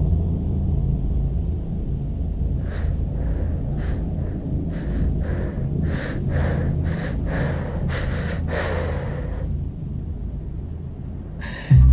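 A woman's ragged, gasping breaths, coming quicker and closer together, strained with pain, over a steady low drone. A sudden loud low boom comes in near the end.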